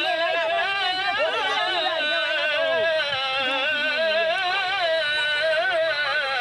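Music: a high voice singing long, wavering, ornamented notes, with a lower line gliding beneath it.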